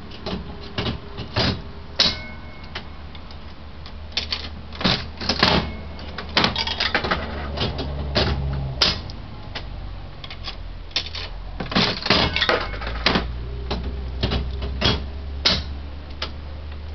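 Vintage 5-cent Jennings slot machine being played: repeated sharp mechanical clacks and clicks from the handle and reel mechanism, coming in irregular clusters.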